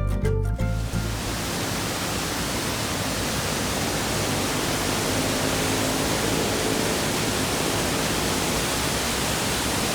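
Background music stops about a second in, giving way to the steady rush of a waterfall.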